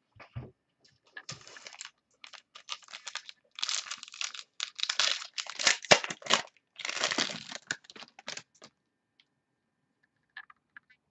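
Football trading cards and their plastic packaging being handled and shuffled on a table: a run of rustling, crinkling and sliding noises that starts about a second in and stops shortly before the end.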